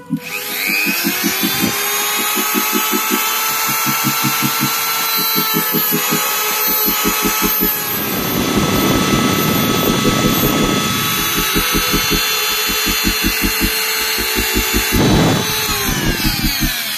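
Small electric power tool spinning up, running with a steady whine, and spinning down near the end. From about eight to eleven seconds in, and briefly near fifteen, it turns rougher and noisier as it bears on the work. A pulsing music beat runs underneath.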